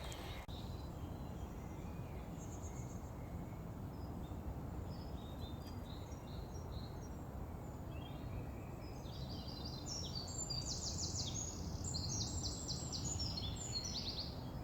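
Small birds chirping and singing, a few scattered notes at first and then a busy run of quick trills in the second half, over a steady low outdoor rumble.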